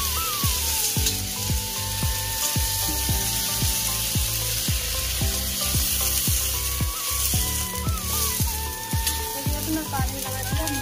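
Potato pieces sizzling as they fry in hot oil in a kadhai. Background music plays over it, with a steady beat of low drum hits about twice a second and a held melody.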